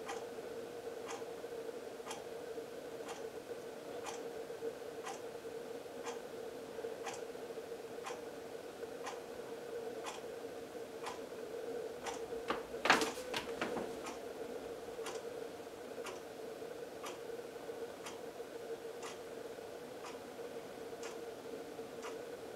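Steady ticking, about one tick a second, over a steady hum in a small room. A short rattle of louder clicks comes about 13 seconds in.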